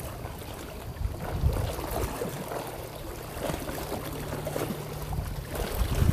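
Wind gusting on the microphone by the sea, with water lapping and a low steady hum through the middle.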